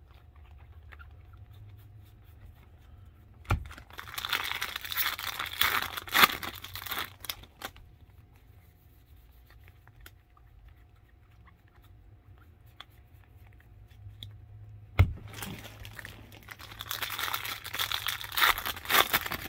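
Foil trading-card pack wrappers being torn open and crinkled, in two spells of a few seconds each, each begun by a single sharp knock.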